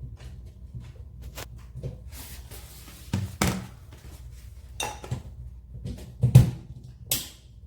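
Handling noises as a hair dryer and its cord are handled and plugged in: scattered clicks and knocks, the loudest a thump about six seconds in. The dryer is not yet running.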